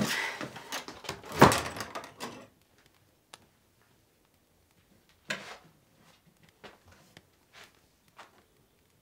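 Wooden door being shut, with a loud thud about a second and a half in, then a few faint small knocks and rustles.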